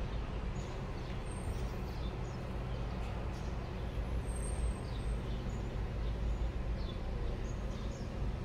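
A steady low mechanical hum over a background hiss, with a few faint, brief high chirps.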